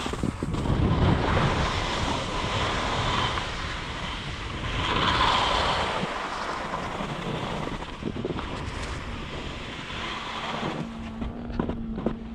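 Skis sliding and scraping over wind-crusted snow on a descent, with wind rushing over the microphone. The rushing stops near the end as the skier halts, leaving a few light clicks.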